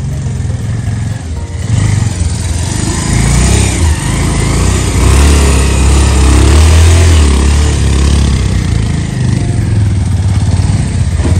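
Motorcycle engines, one of them a Bajaj Pulsar, running at low speed as the bikes pass close by. The sound jumps up about two seconds in and is loudest around the middle.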